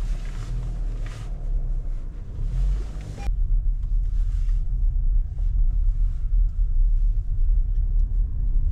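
Low rumble of a car driving slowly, heard from inside the cabin. About three seconds in, the higher hiss drops away and the rumble gets a little louder.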